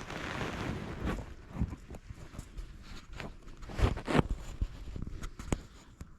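Close rustling and scuffing from people shifting and handling gear, with scattered clicks and a cluster of louder knocks about four seconds in.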